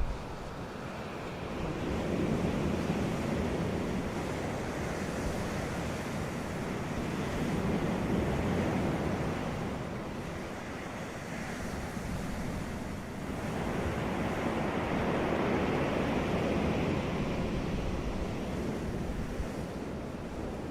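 Sea waves breaking and washing onto a beach, the surf swelling and ebbing slowly in about three surges. A short thump sounds right at the start.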